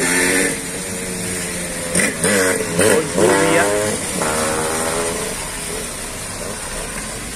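Cars driving past on a rain-wet street, their engines and tyres on the wet road mixed with a steady hiss.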